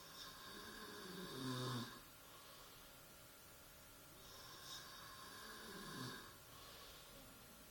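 A man snoring in his sleep: two long snores about four seconds apart, each swelling to a louder low rattle near its end.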